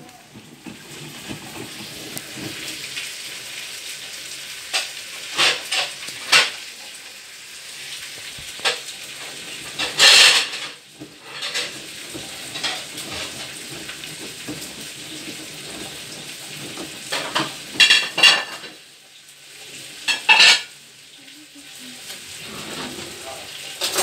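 Front-loading washing machine in its wash cycle, the drum tumbling wet laundry: a steady sloshing hiss of water with short, louder splashes and clatter several times.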